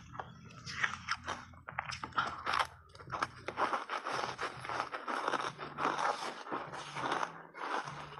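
Close-miked crunching and chewing of foam ice thickly coated in matcha powder: a run of crisp crackles that grows denser after about two seconds.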